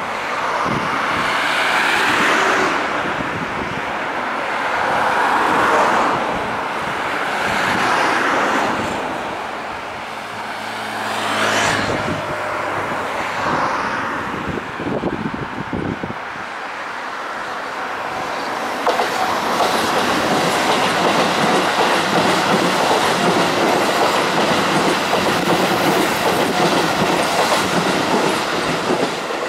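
Keihan 3000 series electric train approaching round a curve and passing close by, its running noise growing and then staying loud and steady from about two-thirds of the way in, with rhythmic wheel clatter over the rail joints.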